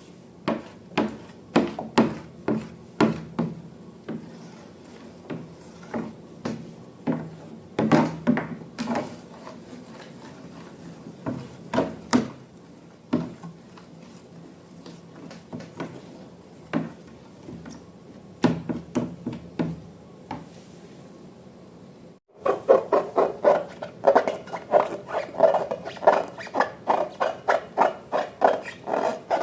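Slime being handled and worked by hand, giving irregular short, sharp squishing clicks a few times a second. After an abrupt break near the end, faster squelching strokes follow at about four a second.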